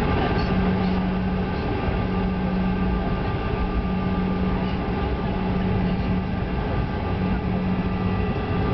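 Airliner cabin noise while the plane taxis: a steady rumble of engines and airflow with a constant low hum and a fainter, higher steady whine.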